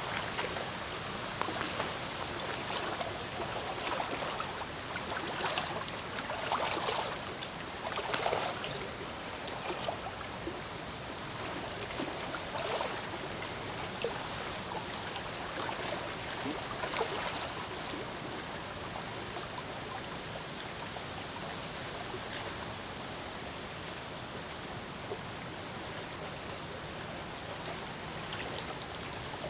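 Wind-driven waves on a lake lapping and splashing against the shore, with frequent sharper splashes in the first half that then settle into a steadier wash.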